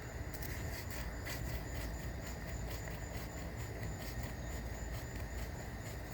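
Chirping insects, likely crickets, keep up a steady, rapidly pulsing high trill over a low rumble.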